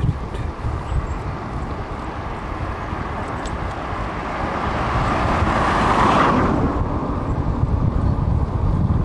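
Wind rumbling on the microphone of a moving vehicle, with an oncoming car passing close by: its noise swells, peaks about six seconds in, then drops away quickly.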